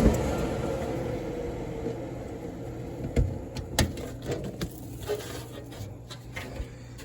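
Amana 90% furnace's fan motor spinning down after shutting off, its running noise fading slowly over several seconds, followed by a few sharp clicks and knocks. The furnace has dropped back to its 3-flash fault, pressure switch stuck open.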